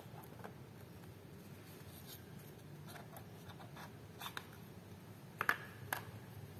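Small white cardboard camera box being slid open by hand: faint scraping and rubbing of card against card, with a few light clicks and taps near the end, the sharpest about five and a half seconds in.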